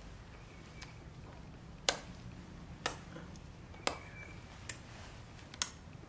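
A series of sharp, short clicks, about one a second and unevenly spaced, the loudest about two seconds in, over a low steady hum.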